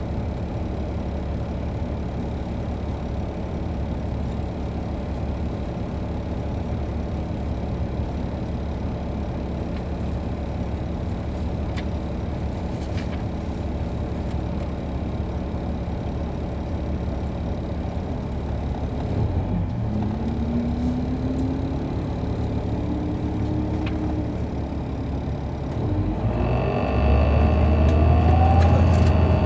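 Caterpillar C13 ACERT diesel engine of an MCI D4500CL coach heard from inside the bus, running steadily. About two-thirds of the way in the engine pitch rises as the bus accelerates, and near the end it gets louder with another rising pitch as it pulls harder.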